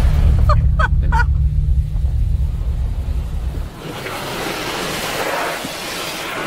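Automatic car wash heard from inside the car: water spray and cloth wash strips sweeping over the body and windows, over a loud low rumble that cuts off suddenly a little past halfway, after which a steady hiss of spray carries on. Three short rising squeaks come about half a second to a second in.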